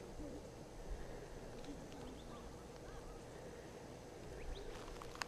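Faint outdoor quiet with a low rumble, broken by a few faint, distant waterfowl calls, like a duck's quacks.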